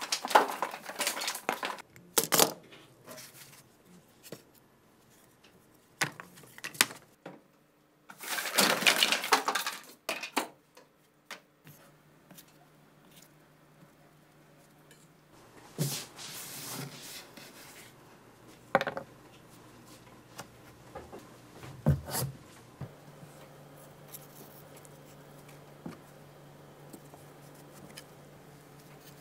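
Clattering, rustling handling noise, thickest at the start and again about eight seconds in, then separate taps and knocks as cardboard gun cutouts are laid down and shifted on a wooden tabletop.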